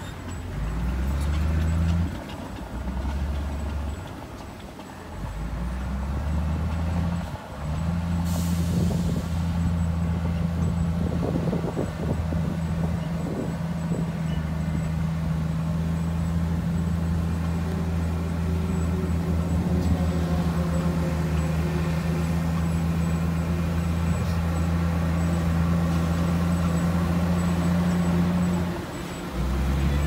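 Heavy diesel engine of earthmoving machinery running under load. Its note dips and changes in the first few seconds, then holds steady, with a short hiss of air about eight seconds in.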